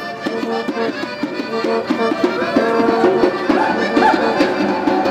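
Traditional Middle Eastern-style music with a quick, steady rhythm of drum strikes under a repeating melody.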